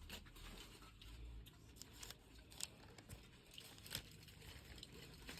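Near silence with faint, scattered small clicks and light rustling, the loudest click about four seconds in.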